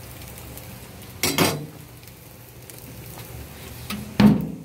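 Sausages sizzling on a gas grill, with a metal clatter about a second in and a louder metal clank near the end as the grill lid is shut.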